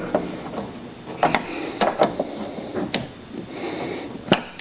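A small screwdriver prying at a small trim cap, making several sharp clicks and scrapes as it works under the edge.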